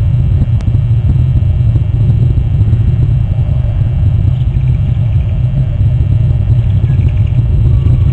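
Steady low rumble of wind buffeting an outdoor camera microphone.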